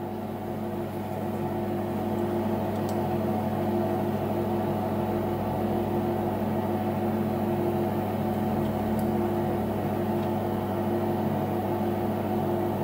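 Steady electric hum of a running workshop machine motor, with a few faint metal clicks as the boring head's adjusting screw is turned with an allen key.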